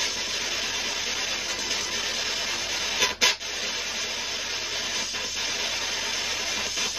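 Steady hiss, with a short double rustle or scrape about three seconds in.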